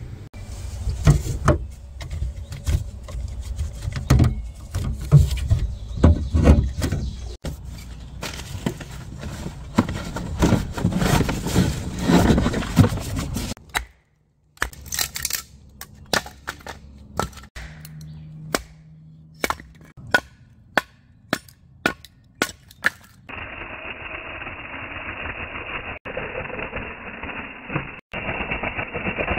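Pieces of firewood knocking and clattering: frequent heavy knocks for the first half, then sparser sharp clacks. For the last several seconds a small handheld mini chainsaw runs with a steady buzz as it cuts through firewood.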